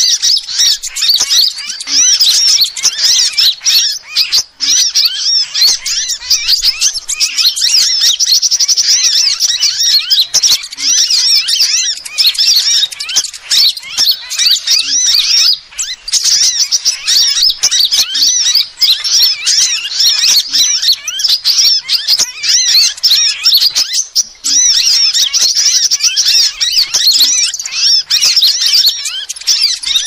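Dense, unbroken high-pitched chirping and fast twittering trills of small birds: a sunbird lure recording that layers the calls of several sunbird species.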